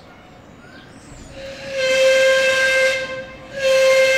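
Steam engine's whistle blown twice: a long blast of about a second and a half, then a shorter one near the end. Each blast is one steady note with a breathy hiss of steam.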